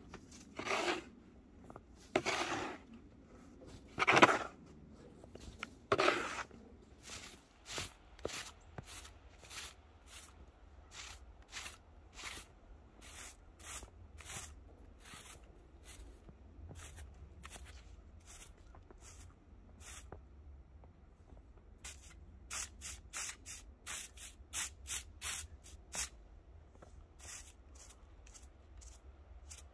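Plastic snow shovel scraping and pushing snow off the rails of a miniature railroad track, four strokes about two seconds apart. Then a broom sweeps snow from the rails in short, quick strokes, one or two a second.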